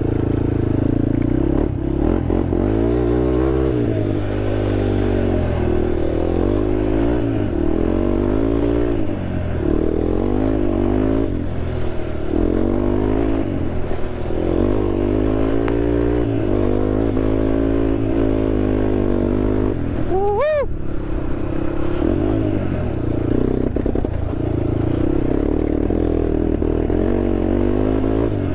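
Honda TRX sport quad's single-cylinder engine running while ridden off-road, its revs rising and falling over and over as the throttle and gears change. There is one brief sharp rev about twenty seconds in.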